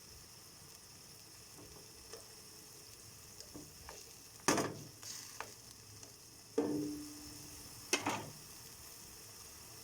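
Tomatoes sizzling in a pan while a spoon presses and stirs them, with two sharp knocks of the utensil against the pan, about halfway through and near the end.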